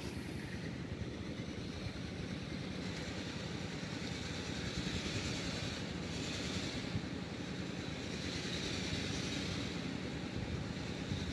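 Wind buffeting the microphone outdoors: a steady, fluttering low rumble with a faint hiss above it.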